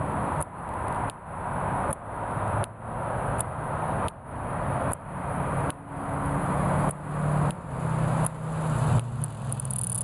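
Annual cicada singing: a loud, pulsing buzz in repeated phrases, each swelling and then cutting off sharply, a little more than one a second. A low, wavering hum runs underneath.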